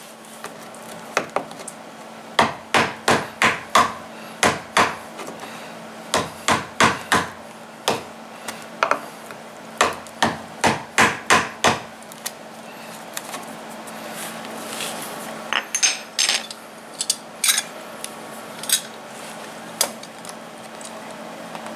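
Wood chisel being struck again and again as it cuts a hinge mortise deeper into a wooden door jamb: quick runs of sharp knocks through the first half, then fewer, lighter taps.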